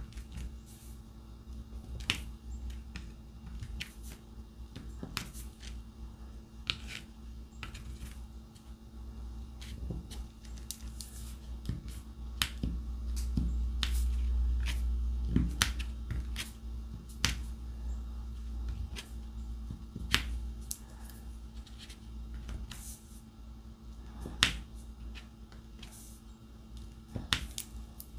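Small, irregular sharp clicks and taps of a diamond-painting pen picking up resin drills from a tray and pressing them onto the adhesive canvas. A low rumble swells briefly in the middle.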